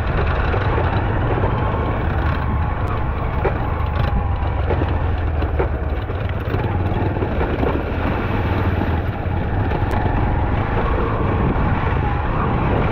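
Motorcycle engine running steadily as the bike climbs a slope, under a heavy low rumble of wind and road noise on a helmet-mounted GoPro's microphone.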